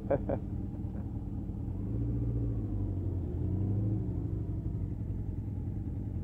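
Motorcycle engine running at low speed while the bike rolls slowly, with two gentle rises in engine speed, about two seconds in and again about three and a half seconds in.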